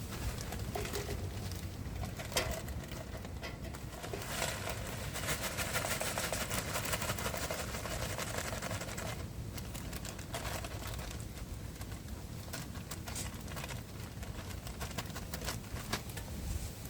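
Wind buffeting the microphone in strong gusts, a constant low rumble that swells a little in the middle, with scattered light clicks and rustles.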